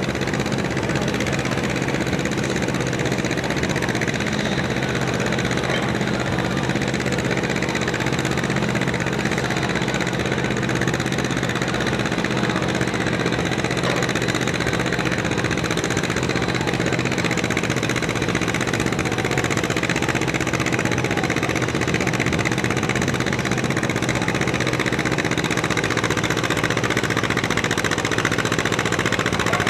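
Antique John Deere two-cylinder tractor engine running steadily under load as the tractor pulls a weight-transfer sled at a slow crawl.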